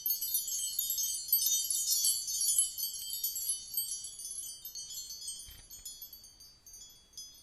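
High tinkling chimes, many overlapping bell-like notes ringing together, dense at first, then thinning out and fading toward the end.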